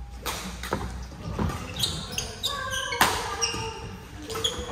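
Badminton rally: sharp racket strikes on a shuttlecock come about every half second. Short high squeaks from court shoes on the floor sound in the middle.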